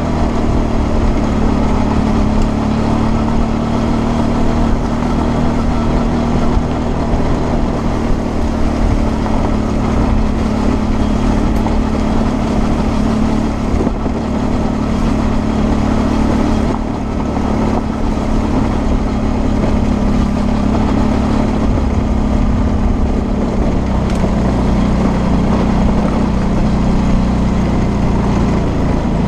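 Suzuki V-Strom 650's V-twin engine running steadily under way on a gravel track, heard from on board over a steady rush of noise. Its pitch drops slightly in the last few seconds as the bike slows or eases off.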